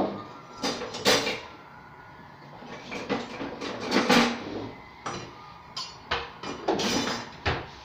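Kitchen clatter: a string of irregular knocks and clinks of dishes, pans and utensils being handled, a few of them sharp and loud.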